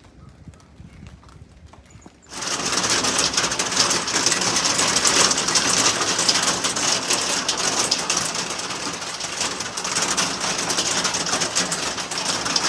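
Steady rain falling on the roof of a hunting box blind, heard from inside as a dense crackle of countless drops. It starts suddenly about two seconds in, after a quiet stretch.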